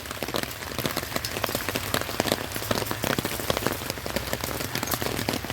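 Steady rain, many separate drops pattering.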